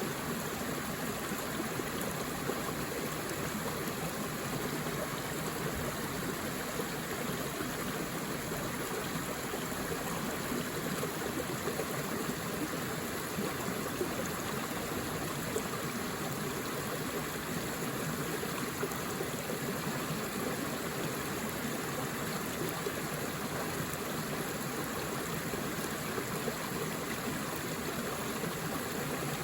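A forest stream flowing over rocks: a steady, even rush of water with small gurgles, unchanging throughout.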